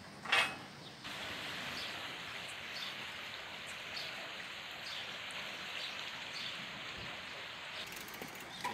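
Fast-flowing river water rushing with a steady hiss, after a short loud bang-like noise about a third of a second in.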